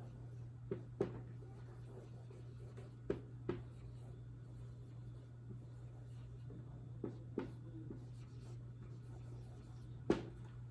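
Quiet writing sounds: a few short taps and strokes of a pen or marker, in pairs, over a steady low hum.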